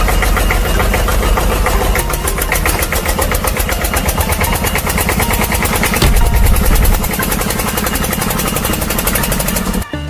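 Engine running steadily with a fast pulsing beat, swelling louder for about a second midway, then cut off abruptly near the end.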